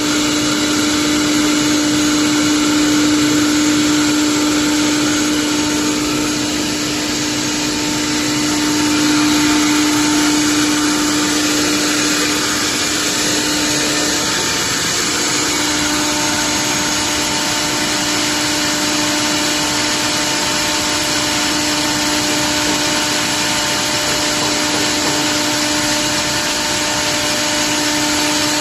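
Four-spindle CNC wood bowl lathe running, turning several wooden bowls at once: a steady machine whine over dense cutting noise, the whine dropping out briefly about halfway.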